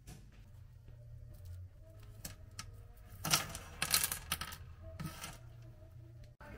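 Household clicks and light clattering, like small hard objects being handled, over a low steady hum. A burst of sharp knocks comes about three to four and a half seconds in, with one more a second later.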